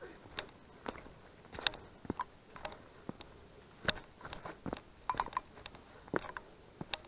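Scattered light clicks and taps at an irregular pace, roughly one or two a second, a few with a brief ring.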